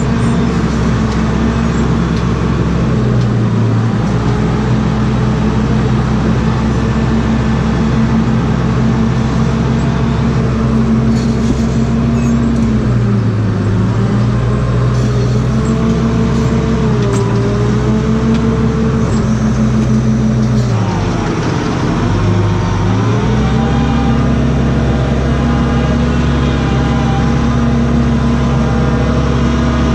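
Tractor engine running steadily under load, heard from inside the cab while it pulls a mixer feeder wagon that is putting out feed. Its revs sag briefly twice, the second time longer, then pick back up.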